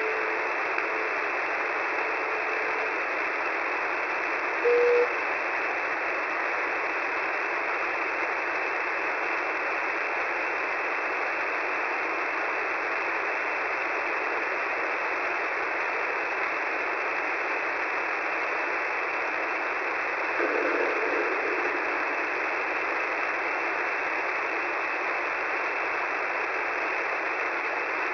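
Shortwave radio receiver tuned to 10755 kHz giving a steady hiss of static through a narrow passband. A faint steady tone fades out in the first three seconds, a short beep comes about five seconds in, and a brief louder burst of noise about twenty seconds in.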